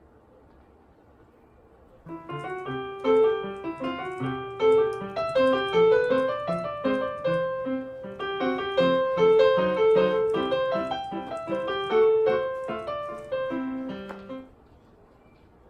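A short piano tune of quick notes over a lower held note, starting about two seconds in and stopping shortly before the end, with faint room tone on either side.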